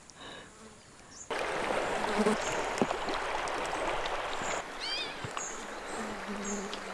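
River water running steadily, starting abruptly about a second in. Small birds chirp in short high calls over it, with one brief low buzz near the end.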